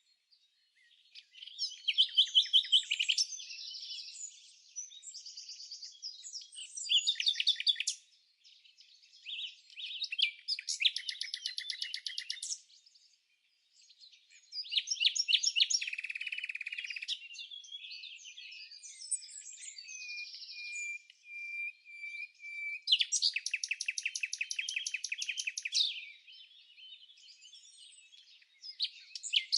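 Songbirds singing: a run of separate song phrases, many of them rapid trills of quickly repeated notes, with short pauses between them.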